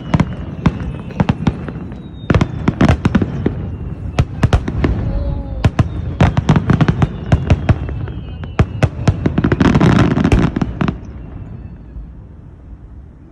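Fireworks going off: a rapid run of cracks and bangs from bursting shells that grows densest near the end, then stops and leaves a quieter tail.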